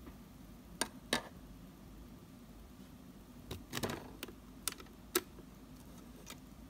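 Light clicks and taps of small plastic miniature kitchen pieces being handled: a toy cutting board set down on the counter, then a toy knife taken off its wall rail. About eight separate clicks, with a quick cluster in the middle.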